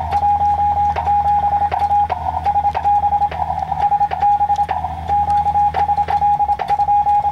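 Morse code (CW) sent by hand on a Morse key at an amateur radio station: a single mid-pitched sidetone beeping on and off in rapid dots and dashes, with sharp clicks from the key and a steady low hum underneath.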